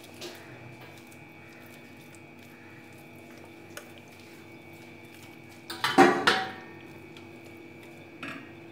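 Metal kitchenware clattering briefly about six seconds in, over hands rubbing masala paste into a raw whole chicken on a plate, with a low steady hum behind.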